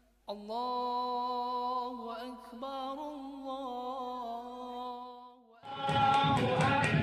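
A single unaccompanied voice chanting in long, held notes. Near the end, louder music with singing and a beat comes in.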